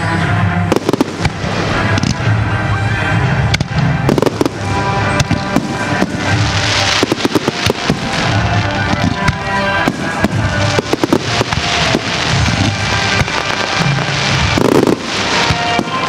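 Aerial firework shells bursting one after another with crackling, over music.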